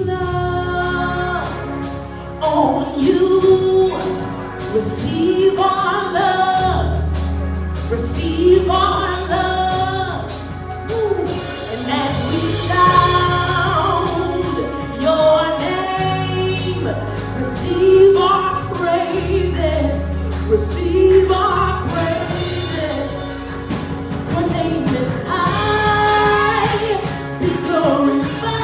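Gospel praise song with female-led singing over a band, with steady bass notes and cymbals.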